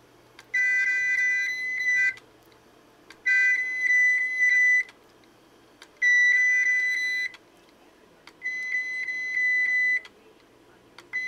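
Failed Seagate 1 TB 7200 RPM SATA hard drive, powered up, giving off a high electronic beeping like a little tune. It comes in repeated runs of about a second and a half, each a string of short high beeps over a lower tone, about every two and a half seconds.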